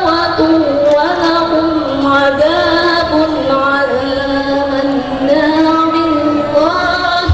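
A woman reciting the Quran in the melodic tilawah style, drawing out long, ornamented notes that glide up and down.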